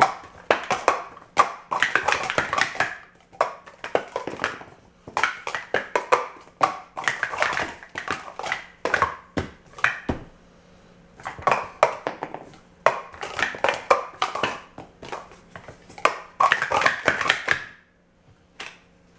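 Plastic Speed Stacks sport-stacking cups clattering as they are rapidly upstacked and downstacked on a mat, in quick runs of clacks broken by short pauses. The stacking stops shortly before the end.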